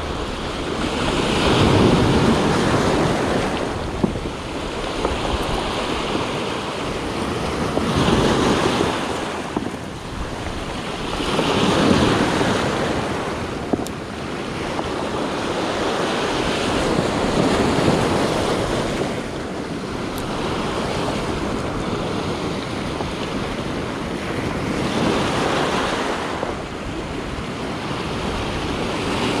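Sea surf breaking and washing over a cobble beach, the noise swelling into a loud surge every few seconds and sinking back between waves.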